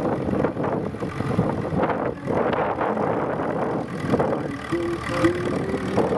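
Engine of a grey Ferguson TE20 tractor running at low speed as it pulls a loaded passenger trailer past close by.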